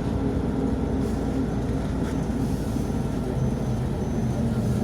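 Cabin noise of a MAZ-105 articulated city bus under way: a steady low engine and road rumble. From about two seconds in, a faint high beep repeats at a steady rate of about one and a half a second.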